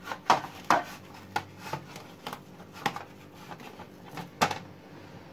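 Kitchen knife cutting through a large watermelon's rind: a string of irregular crisp cracks and knocks, the loudest a little past four seconds in.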